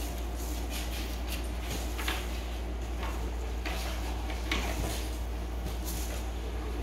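Light scrapes and taps of a wand toy on a wooden plank as a kitten bats at it, a few separate clicks over a steady low hum.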